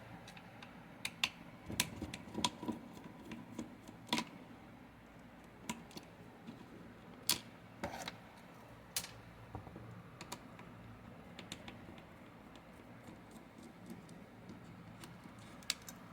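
Scattered light clicks and taps, irregular and about a dozen in all, from a screwdriver and the plastic housing of a Mercedes Actros MP4 gear selector lever as two small screws inside it are undone.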